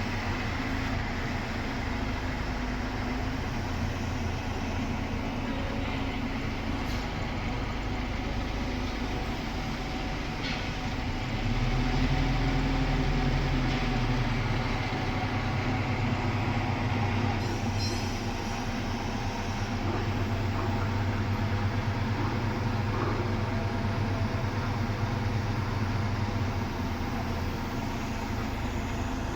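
Heavy machinery engine running steadily with a low drone, swelling a little for a few seconds near the middle, with a few faint clicks.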